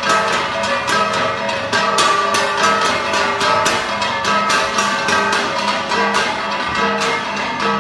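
Igorot gong music: flat bronze gongs (gangsa) struck in a quick, even beat, their metallic ringing held between strikes.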